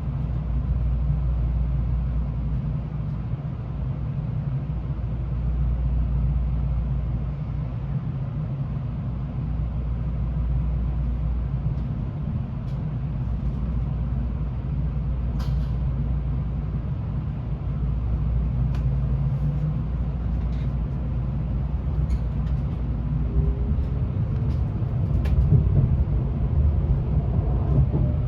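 Inside a Tokaido Shinkansen N700A car pulling away and gathering speed: a steady low running rumble, with a motor whine that rises in pitch over the last few seconds and a few light clicks.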